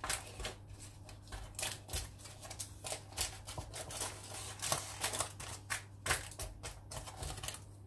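Wooden spoon scraping and pressing a sticky oat, grated carrot and cheese mixture into a parchment-lined glass baking dish, making irregular scrapes and soft taps.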